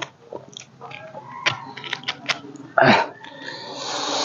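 Hands breaking open a pomegranate's rind and prying out arils, with small cracks and clicks. There is a short loud burst about three seconds in. Near the end a loud breathy sneeze builds up.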